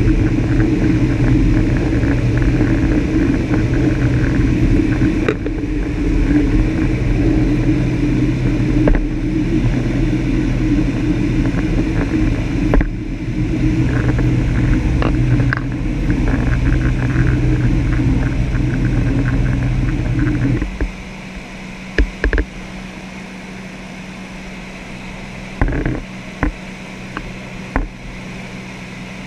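Light aircraft's piston engine and propeller droning, with rushing air, heard from inside the cabin. About two-thirds through it drops sharply to a quieter, steadier hum, followed by a few short knocks.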